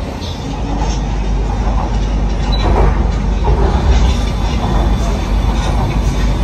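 Kochi Metro train running along its track, heard from inside the car: a steady rumble of wheels and running gear with rattling noise above it.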